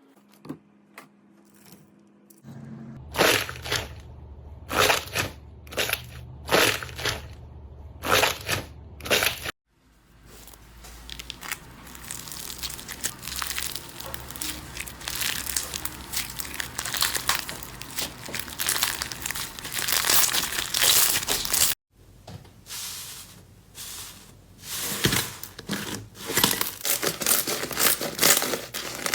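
Crunchy slime being squeezed and pressed by hand. First come about six sharp crunches, roughly one a second. It then breaks off into dense, steady crackling, and after another sudden break into scattered crackles and pops.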